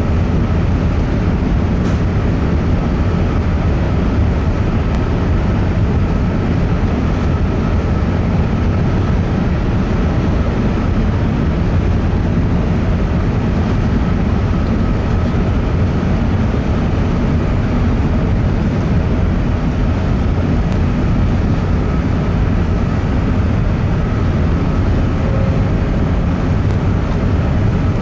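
Steady low rumble of the Coastal Celebration car ferry's engines and propulsion as it manoeuvres to dock, with a faint steady whine above it.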